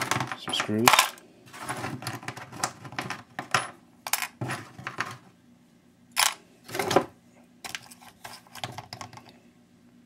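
Small pieces of scrap steel from a dismantled hedge trimmer clinking and clattering against each other as they are handled and dropped onto a pile, in several irregular runs of metallic clinks with short pauses between.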